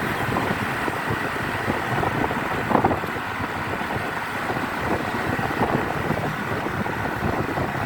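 Tour bus on the move: a steady mix of engine and road noise, with wind buffeting the microphone.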